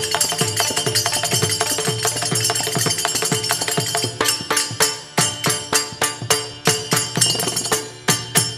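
Devotional namasankeerthanam music with no singing: fast, dense metallic percussion over low drum strokes coming about twice a second, with steady held tones underneath. The strokes come thickest in the first half and fall into spaced, accented beats in the second half.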